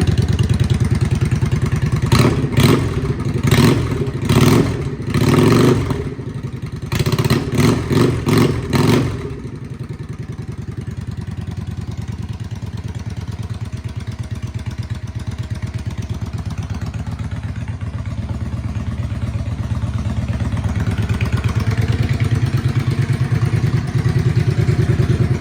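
A 2017 Yamaha XVS650's air-cooled V-twin running through aftermarket Vance & Hines exhaust pipes. It is blipped up on the throttle again and again in two quick runs in the first third, then settles back to a steady idle.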